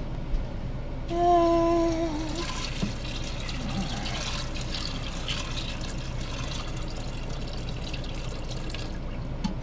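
Filtered water poured from a filter pitcher into an electric pressure cooker's pot of dry beans, a steady pour lasting several seconds. A short steady tone sounds about a second in, just before the pour, and is the loudest thing.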